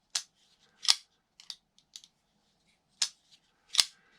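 Kershaw Thistle folding knife being worked open and shut, fidget-style, with the blade clicking against its button-released liner lock. There are four sharp clicks, spread as two pairs, with a few fainter ticks between them.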